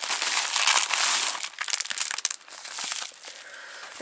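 Plastic packaging crinkling as it is handled and opened. It is loudest and most continuous for about the first two seconds, ends that stretch in a flurry of sharp crackles, then turns to faint, sparse crinkles.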